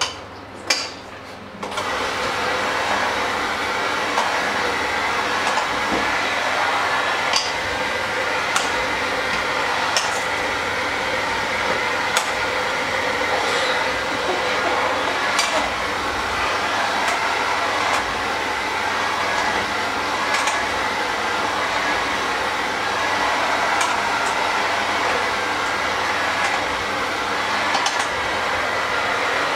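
A couple of light clinks, then about two seconds in a handheld electric mixer starts and runs steadily. Its beaters churn a thick mash in a stainless steel bowl and click sharply against the metal every second or two.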